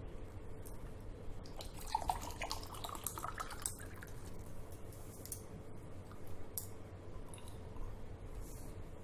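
A person drinking water in quick gulps, a run of wet swallowing sounds and small clicks from about two to four seconds in, then a few scattered clicks.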